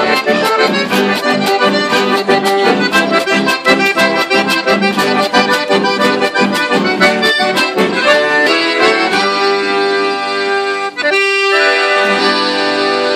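A piano accordion and a button accordion playing a lively, rhythmic tune together with guitar accompaniment. About nine seconds in the rhythm stops and the ensemble holds long sustained chords, with a brief break a couple of seconds later, closing the piece.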